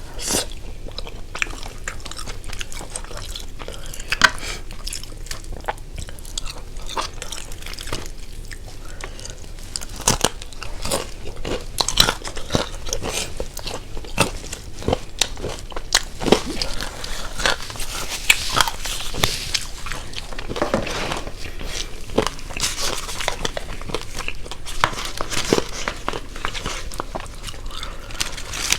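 A person biting and chewing crunchy food close to the microphone, with many short crisp crunches that come thicker in the second half.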